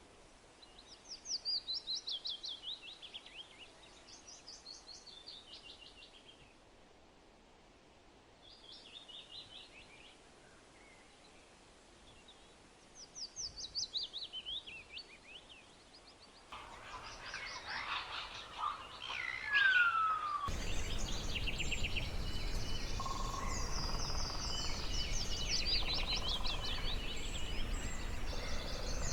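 Songbirds singing. One song of rapid trilled notes falling in pitch is repeated several times. Later several birds call at once over a steady outdoor hiss, with one clear falling whistle just before the hiss comes in.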